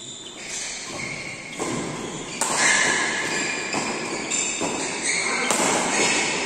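Badminton rally: several sharp racket hits on the shuttlecock, spaced about half a second to a second apart, with players' footfalls on the court, echoing in a large hall.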